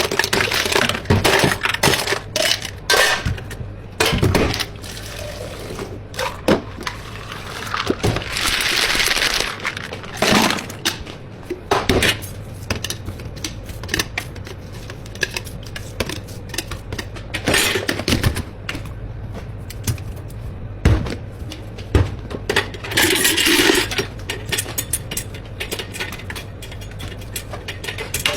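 Busy drink-counter work: plastic containers, cups and utensils clattering and knocking irregularly, with a couple of longer rattling, rushing stretches, over a steady low hum.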